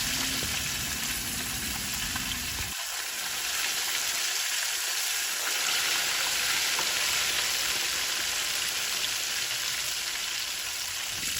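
Pieces of tuna frying in hot oil in a pan, a steady sizzle. A low rumble under the sizzle stops abruptly about three seconds in.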